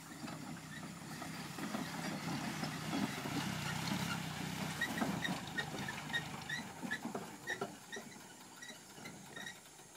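Land Rover 110 engine running as it drives across rough grass, growing louder as it comes closest and then fading. Partway through, a run of short high chirps, about three a second, sounds over it.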